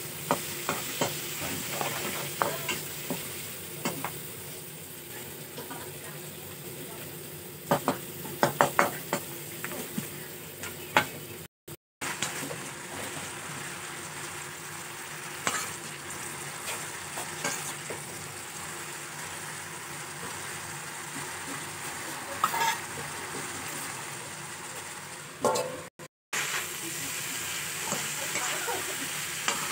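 Vegetables sizzling as they are stir-fried in a metal wok, with a metal spatula scraping and clacking against the pan in quick clusters. The sound breaks off for a moment twice.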